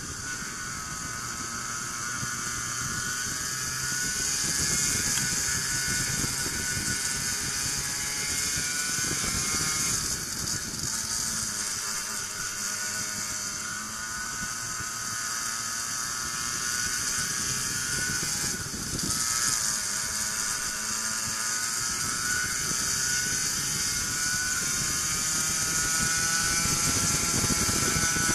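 Racing kart engine heard from on board, running hard with a high buzz; its pitch drops three times as the kart slows for corners and climbs again as it accelerates out.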